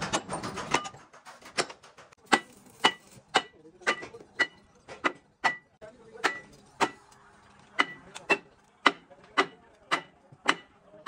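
Hammer striking steel in steady single blows about two a second, each with a short metallic ring. A faster, denser run of taps stops about a second in.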